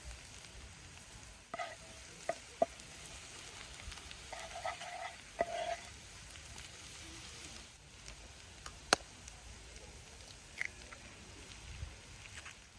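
Food sizzling steadily in a frying pan, with a handful of sharp clicks and short clinks scattered through it, as from a utensil working the pan.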